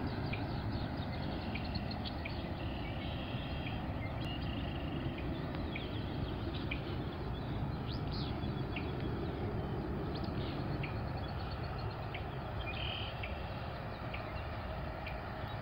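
Steady outdoor noise, like wind on the microphone, with scattered short, high bird chirps throughout.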